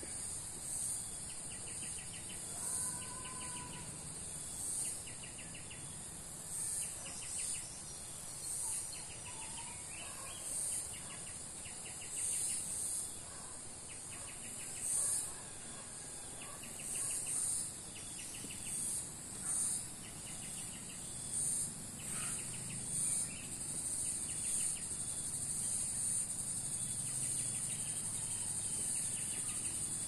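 Insects calling outdoors: a steady high drone that swells every second or two, with short trills of a cricket repeating throughout.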